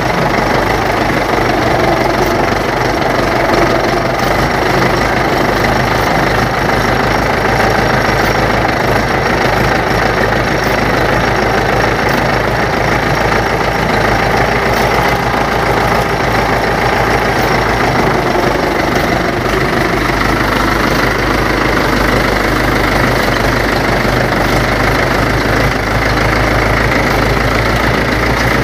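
Mahindra 475 tractor's diesel engine running steadily at a constant speed while the tractor moves slowly, heard close to the engine.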